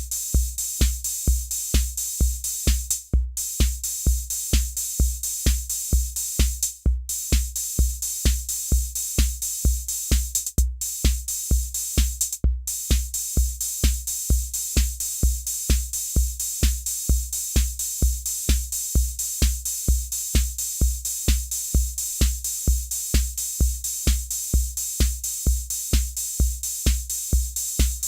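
Roland TR-606 analog drum machine playing a steady pattern: a bass drum on every beat, a little over two a second, under constant hi-hat and cymbal hiss. The pattern drops out for an instant a few times in the first half.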